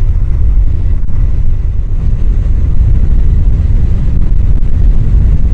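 Loud, steady wind rumble on a helmet microphone on a Honda CBR1000F motorcycle at road speed: the microphone sits right behind the helmet's chin-bar air vent, so the air flowing through the vent blasts straight onto it.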